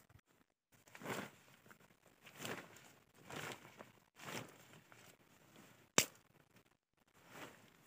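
Tent fabric rustling in several short swishes, about one a second, as a dome tent is collapsed and its pole drawn out of the sleeve. One sharp click comes about six seconds in.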